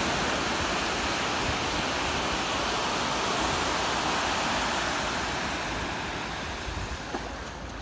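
Steady rushing of surf washing onto a sandy beach. It eases a little near the end.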